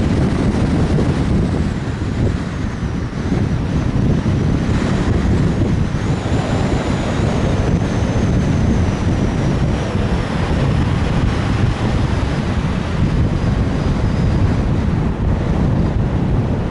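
Steady wind rumble on a pole-mounted action camera outside a 2015 Subaru Legacy, over the car's road and tyre noise as it drives. A faint high whine slowly falls in pitch through the middle.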